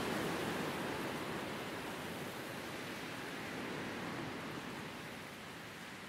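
Wind blowing through grass and a bare tree: a steady noise that gradually dies down toward the end.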